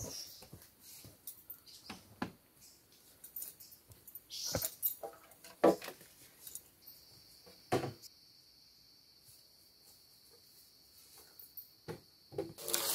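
Scattered knocks and rustles of bamboo poles being handled and moved over leaf litter, with a few sharper knocks about five and eight seconds in. A steady high drone comes in about seven seconds in, and near the end a quick run of chopping blows begins.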